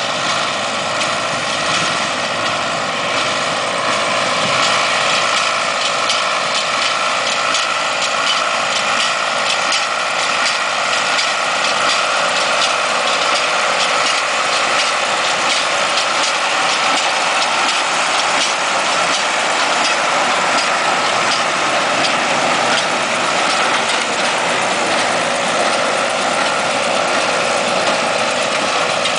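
A tractor-drawn Freeman 270 two-tie side-feed baler at work: a steady engine drone with a fast, even clatter from the baler's moving parts.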